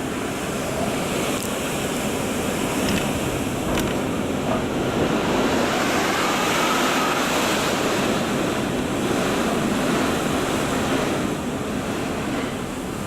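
Typhoon-force storm wind gusting hard, a continuous rushing roar that swells through the middle and eases near the end, with wind buffeting the microphone and a faint whistle about halfway through.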